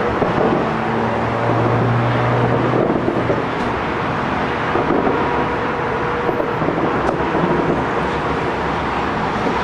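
Steady outdoor city noise of road traffic, with a brief low engine-like hum early on. A single sharp crack comes about seven seconds in, a distant firework.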